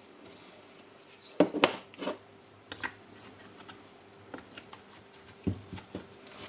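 Scattered clicks and knocks of plastic and metal parts being handled and fitted into a cordless impact wrench during reassembly, a quick cluster of knocks about one and a half seconds in and a few lighter taps later.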